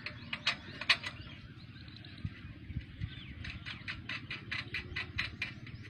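Scratchy rubbing and clicking of hands and rope working a metal climbing frame against a date palm trunk. A few sharp clicks come in the first second, then a quick run of about five strokes a second past the middle, all over a low steady rumble.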